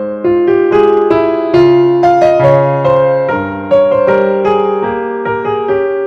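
Background keyboard music: a gentle melody of single struck notes over changing chords, each note fading after it is played.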